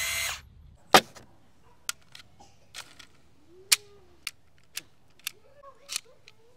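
Channellock Rapid Fire quick-load power screwdriver: its motor whirs briefly and stops under a second in, then about ten sharp plastic clicks at irregular spacing as the bit magazine and loading slide are worked, the loudest click about a second in.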